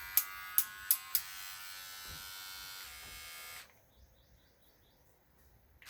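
Cordless IWEEL pet clipper running with a steady high buzz, with four sharp clicks in the first second or so. The motor switches off a little over halfway through.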